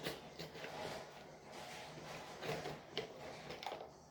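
Faint handling noises: a few scattered light taps and clicks over a low background hum.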